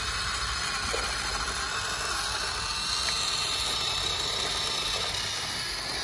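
Small electric motor and plastic gearbox of a toy RC vehicle running steadily: an even whirring hiss with a faint high whine.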